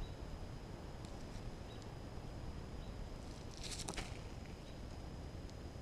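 A red-tailed hawk gives a brief rustle about three and a half seconds in as it shifts and hunches over its prey, with a few faint ticks and a low wind rumble throughout.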